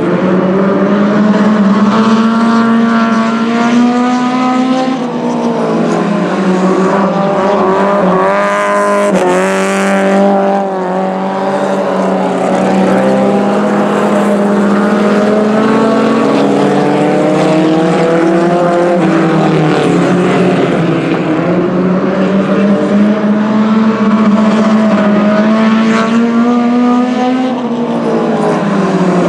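Several race car engines at full throttle around a dirt oval track, their pitch rising as they accelerate and falling as they lift, over and over. About eight to ten seconds in, one car passes close, its pitch sweeping sharply up and then down.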